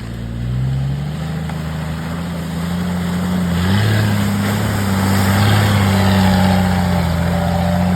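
Off-road 4x4's engine pulling under load. Its pitch climbs slowly, steps up a little past the middle, then holds steady while it gets louder.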